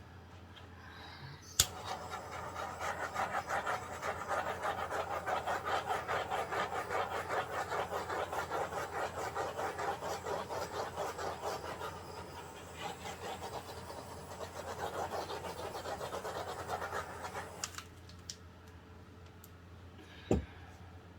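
A handheld torch clicks on and its flame hisses steadily with a fast flutter for about sixteen seconds, then shuts off abruptly. A short low thump comes near the end.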